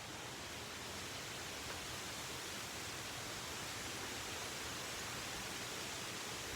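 Steady faint hiss of background noise with no distinct sounds in it.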